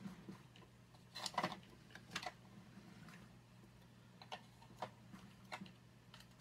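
Scattered light clicks and knocks of small makeup items being picked up and set down on a tabletop as someone rummages through them. The loudest cluster comes about a second and a half in, over a faint steady hum.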